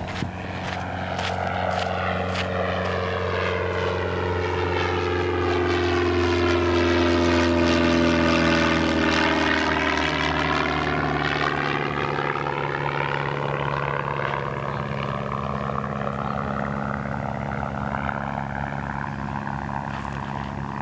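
An aircraft flying overhead: a steady engine drone that grows louder to a peak about eight seconds in, drops in pitch as it passes, then slowly fades.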